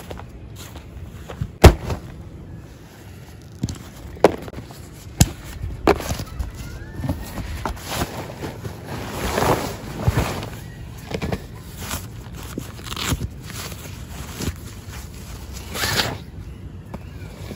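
Irregular sharp knocks and clacks over ongoing scraping and rustling, the loudest knock about a second and a half in.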